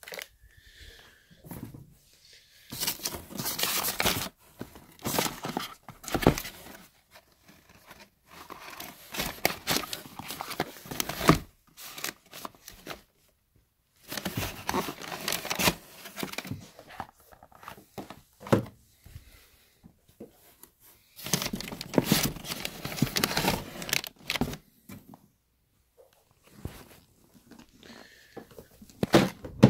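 Plastic packaging bags and paper wrapping crinkling and rustling as they are handled, in several spells of a few seconds each with short pauses between.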